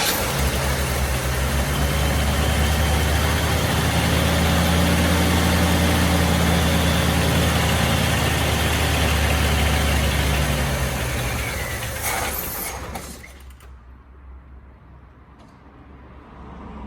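Chevrolet Caprice V6 engine running steadily just after its first start, then faltering and dying about thirteen seconds in: the engine stalls.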